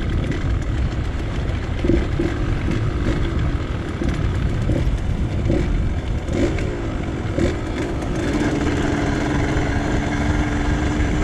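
Yamaha DT 125 X's two-stroke single-cylinder engine running while being ridden. Its revs rise and fall in short swoops, then it holds one steady note for the last few seconds.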